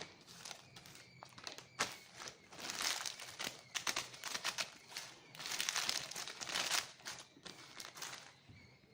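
A snack packet crinkling as it is handled, in several bursts of crackling that die away near the end.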